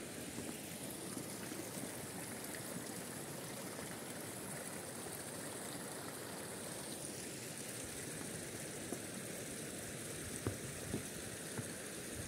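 Fırnız stream running steadily over stones. A few footsteps knock on leaves and wooden planks in the last couple of seconds.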